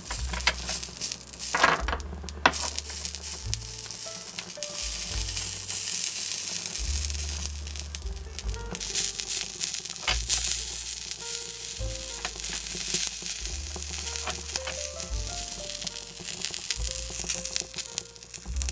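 Small pieces of meat sizzling as they fry in a tiny frying pan, stirred with chopsticks, with scattered light clicks of the chopsticks against the pan. Background music with a stepping bass line plays underneath.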